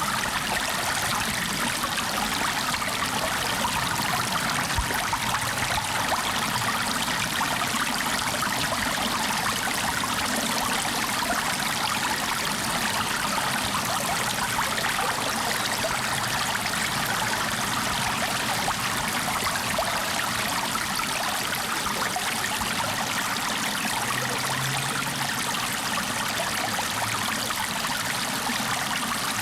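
Water flowing steadily, a stream running with a continuous rushing and trickling sound.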